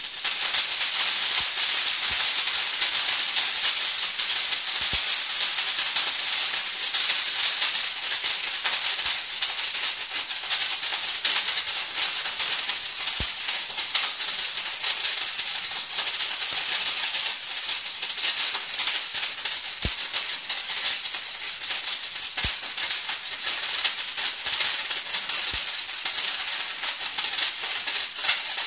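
Firework torch in its yellow crackle stage: a loud, dense, steady crackling of countless tiny pops, starting suddenly as the quieter blue torch hiss ends.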